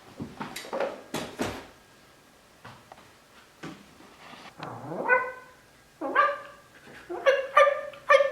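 A few sharp clatters at the start, then rising yelps about five seconds in and a run of high, sharp barks toward the end.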